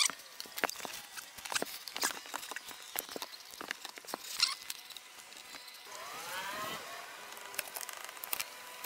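Scattered light clicks and taps from handling a solar panel's aluminium frame and brackets and a hand tool on an RV roof. About six seconds in, a faint tone rises and falls for about a second.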